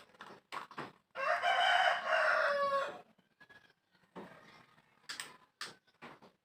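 A rooster crows once, a single long call of about two seconds that falls slightly at the end. Scattered small clicks and knocks of handling come before and after it.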